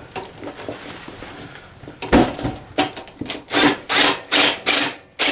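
Cordless drill/driver running a screw into the ATV's rear rack mount in a string of short bursts, a couple a second, starting about two seconds in.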